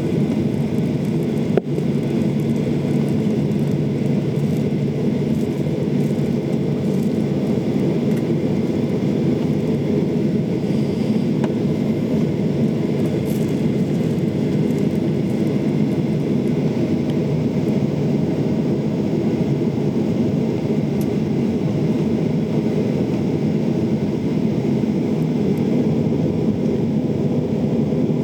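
Cabin noise of a Boeing 737-800 airliner heading into its takeoff: a steady low rumble of jet engines and rolling gear, with one sharp click about a second and a half in.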